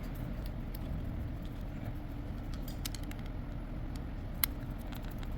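Steady low background hum with faint small clicks of carburetor parts and a screwdriver being handled, and one sharper click about four and a half seconds in.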